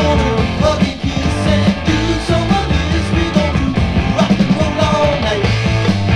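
Early-1980s rock song played from a vinyl record: a full band plays loud, with a steady beat and deep bass.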